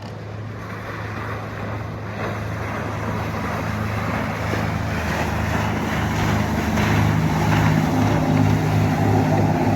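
Motorboat engine running as the boat approaches, a steady low hum growing louder, with a throbbing pulse in the last few seconds, over wash and wind noise.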